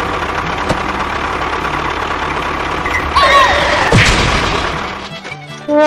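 A small motor running steadily with a whirring noise and low hum, with a sharp thud about four seconds in; it fades out near the end.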